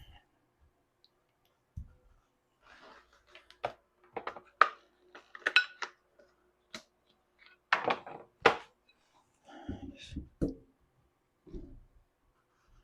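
Scattered clicks and light knocks of hard objects being handled and set down, irregular and of varying loudness, as honing stones are swapped from the 1k to the 5k Shapton.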